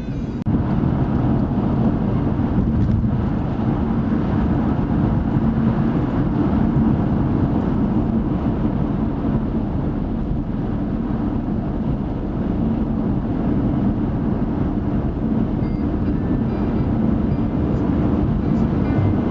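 Steady engine and road rumble of a car being driven, heard from inside the cabin.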